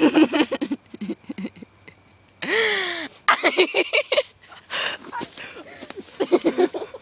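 A young woman's voice making short wordless vocal sounds, with one loud squeal about two and a half seconds in whose pitch rises and then falls.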